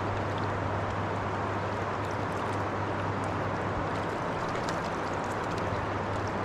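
Steady hum of a boat motor running on a bass boat, under an even wash of water noise.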